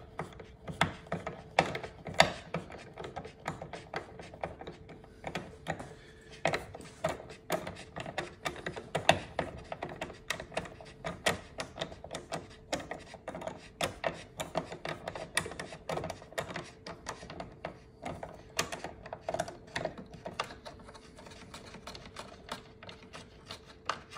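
Ratchet screwdriver clicking in quick, irregular runs as it turns a spoiler fixing screw out of its plastic clip.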